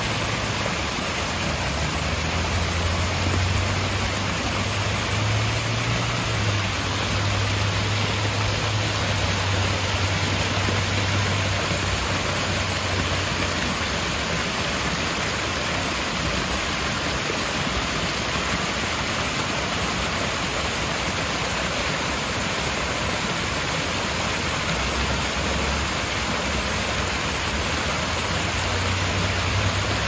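Water pouring steadily down a small rocky waterfall and splashing into the pool below, a constant rushing hiss, with a faint low hum in the first half and again near the end.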